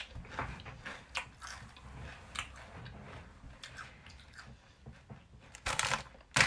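A person chewing crunchy potato chips close to the microphone: irregular crisp crunches, with a louder burst of crackling near the end.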